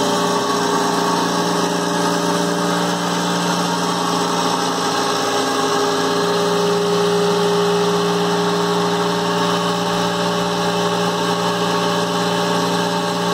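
Tramp oil separator running steadily: its centrifuge spinning at about 10,000 RPM with the suction pump motor drawing coolant, giving a constant mechanical hum with several steady tones.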